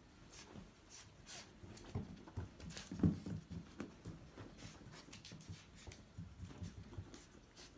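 Two Chihuahuas play-fighting on a floor cushion: scrabbling paws and bodies scuffling, with scattered light clicks and a louder thump about three seconds in.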